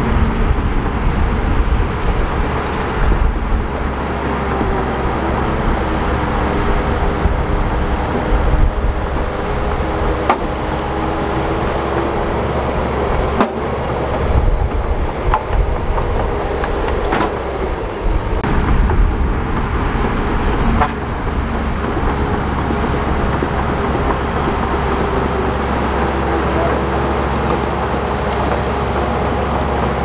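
Shantui crawler bulldozer's diesel engine running steadily under load as the dozer pushes soil, its pitch shifting slightly, with a few sharp clanks along the way.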